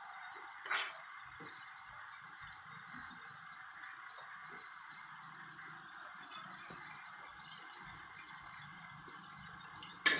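Spice paste of shallots, garlic and tomato sizzling steadily in oil in a wok, with a short knock of the spatula on the wok just under a second in and another at the very end.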